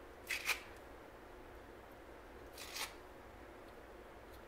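Kitchen knife slicing pieces off an avocado held in the hand: soft, short scrapes, two close together near the start and another just under three seconds in.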